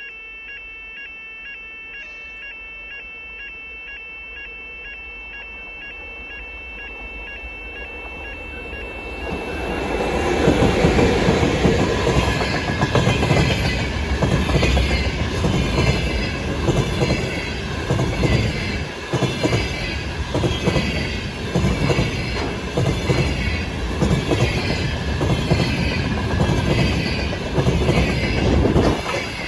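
A freight train hauled by a VL80S two-section electric locomotive approaches with a faint, steady high ringing, growing louder. About ten seconds in it passes at full volume: a rumbling clatter of wheels knocking rhythmically over the rail joints.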